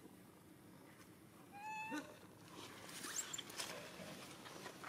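A monkey gives one short, high, clear call about one and a half seconds in, followed by fainter high squeaks and light rustling and clicking.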